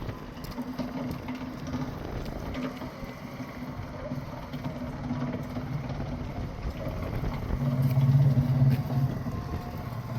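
Engine running steadily with a low hum and background noise, the hum growing louder for about a second around eight seconds in.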